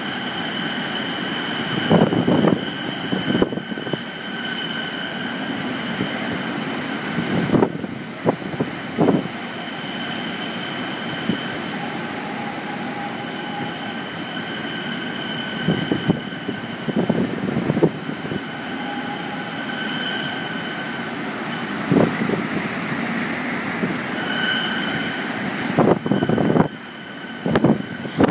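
Typhoon-force wind blowing hard and steadily, with gusts buffeting the microphone every few seconds and thin high whistling tones fading in and out.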